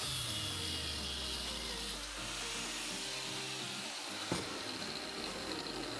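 Angle grinder switched off at the end of a cut through a steel pipe, its motor and disc winding down with a falling hum that fades over about three seconds. A single sharp knock about four seconds in, as the tool or the cut pipe is set down on the wooden bench.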